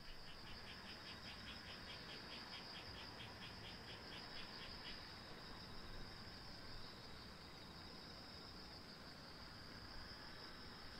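Faint outdoor summer insect song: a steady high-pitched buzzing trill, joined for the first five seconds or so by a chirping repeated about four times a second.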